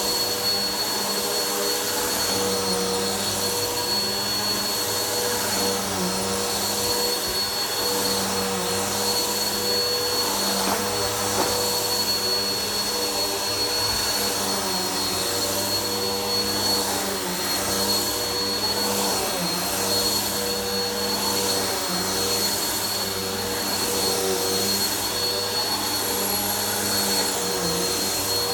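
Vacuum cleaner running steadily while vacuuming dirt from the floor, a constant motor hum with a high whine over it.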